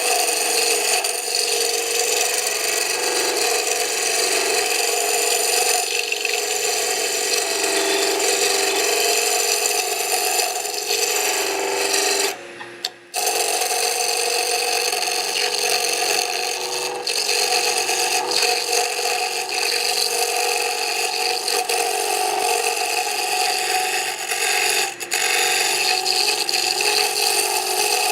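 Turning tool cutting a spinning pine spindle on a wood lathe: a steady scraping hiss of the cut, broken once by a short pause about twelve seconds in.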